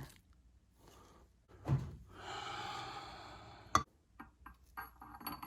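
Transmission parts being handled on the bench: a dull knock, then a sharp metal click and several small clicks. In the middle is a breathy exhale lasting about a second and a half.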